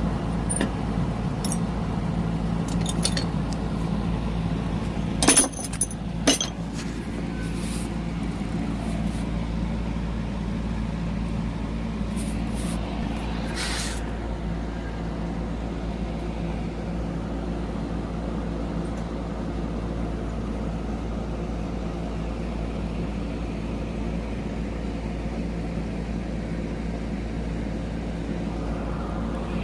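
Glass clinking against a hard surface, loudest twice about five and six seconds in, with lighter ticks earlier, over a steady low hum.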